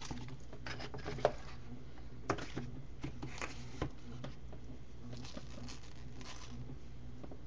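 Scattered light clicks and taps of small craft items, beads and a tray, being handled on a work table, about eight in all, over a steady low hum.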